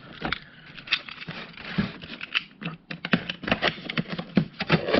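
Packaging being handled: irregular clicks, knocks and rustling as the staple gun's box and case are shifted and pulled at.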